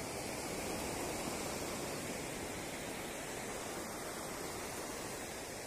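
Small waves breaking and washing up a sandy beach: a steady rush of surf that swells slightly about a second in and eases a little near the end.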